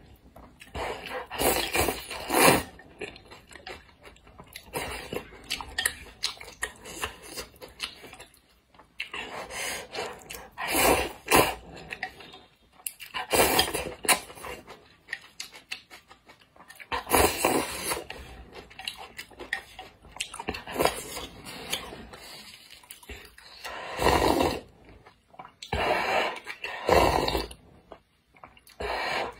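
A person slurping noodles and spicy broth, with chewing: loud wet slurps come in bursts every few seconds, with quieter chewing and mouth sounds between.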